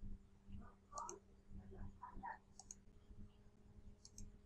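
A few faint computer mouse clicks, some in quick pairs, over a low steady hum.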